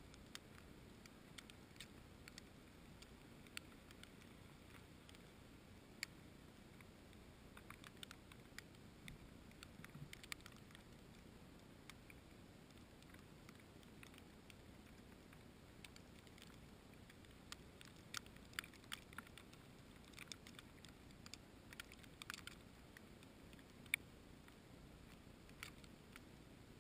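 Faint, irregular small clicks and taps over a low steady hiss, bunched in clusters, with one sharper tick near the end.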